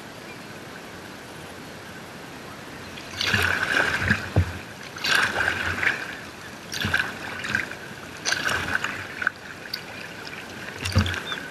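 Kayak paddle strokes: the blade splashes into the water and drips, one stroke about every one and a half to two seconds, starting about three seconds in after a steady hiss of wind and water.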